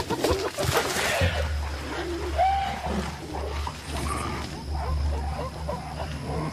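Mountain gorillas calling: a harsh outburst in the first second, then a short pitched call a couple of seconds later, over a low steady hum.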